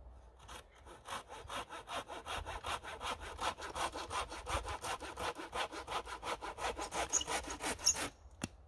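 Hand saw cutting through a wooden pole in fast, even strokes, about five a second, stopping about eight seconds in. A single sharp click follows just after.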